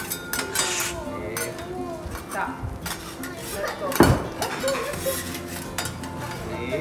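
Metal cooking utensils clinking and scraping against a cooking surface while rice is being cooked, with one loud knock about four seconds in.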